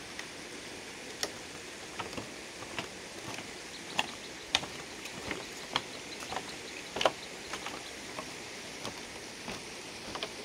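Footsteps on a woven bamboo footbridge: the split-bamboo slats and poles click and creak irregularly underfoot, a few knocks a second, over a steady background hiss.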